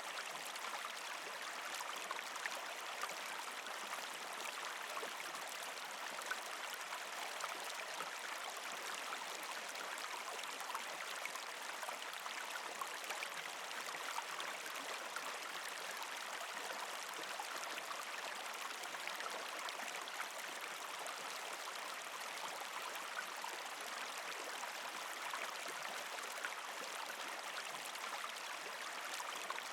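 Partially frozen creek flowing steadily over rocks: a constant rush of water flecked with many small gurgles and trickles.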